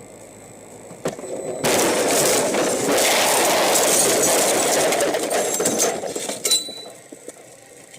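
Vehicle collision picked up by a dashcam: a knock about a second in, then about five seconds of loud noise as the crash unfolds, ending in a sharp crack.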